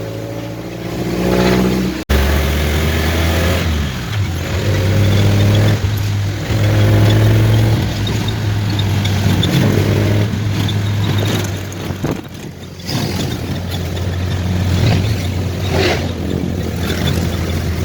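Vehicle engine running on the road, its pitch rising and falling with speed, over wind and road noise, with a brief dropout about two seconds in.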